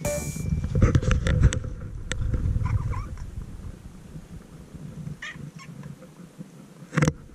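Domestic cat making a few short, soft chirping calls, amid scattered clicks and low rustling, with a sharp knock near the end.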